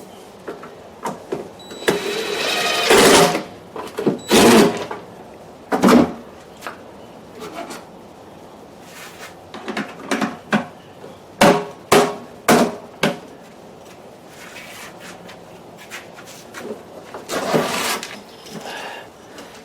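Plastic housing and parts of an automatic hose reel being handled and fitted together: irregular clicks and knocks, with a few longer scraping rustles.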